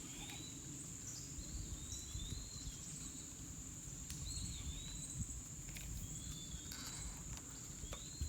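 Steady high-pitched insect chorus of crickets or katydids, with short chirps that rise and fall every second or so, over a low rush of creek current.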